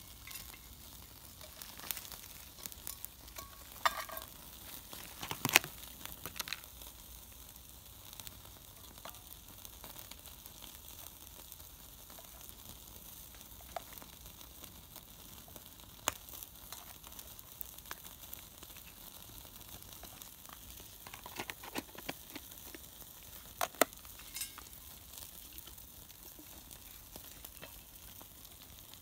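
Jerk-marinated chicken thighs sizzling on a small grill over a crackling wood campfire, a faint steady hiss with scattered crackles. A few sharper clicks and knocks stand out now and then.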